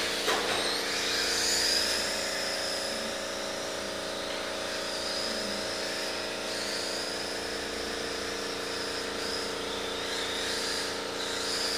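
Electric radio-controlled cars running on a track: a high motor and gear whine that rises and falls as they speed up and slow down, over a steady low hum.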